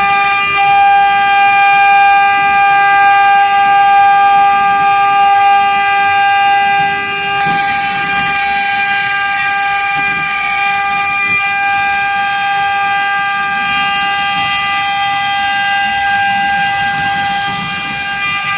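Three-head CNC engraving machine running, its 2.2 kW water-cooled spindles and stepper motors giving a steady, loud, multi-pitched whine. About seven and a half seconds in, a higher hiss joins and the level drops slightly.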